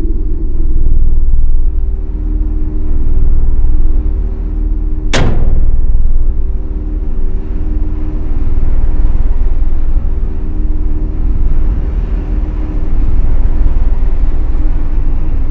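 Deep rumbling drone with several steady low tones held above it, swelling and easing every few seconds. About five seconds in comes a single sharp crack.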